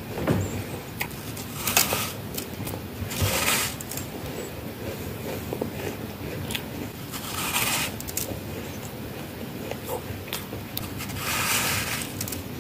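Close-up crunching of soft, frosty freezer-frost ice being bitten and chewed, with crisp crackles throughout and a few louder crunchy bites.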